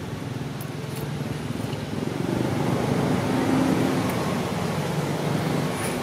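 A motor vehicle's engine passing nearby: a low hum that grows louder through the middle and then eases off.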